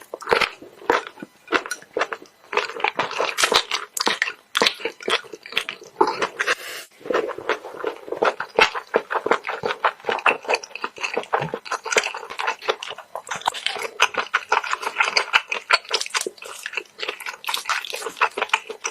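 Close-up chewing and biting with many quick wet crunches and crackles, someone eating mixed seafood.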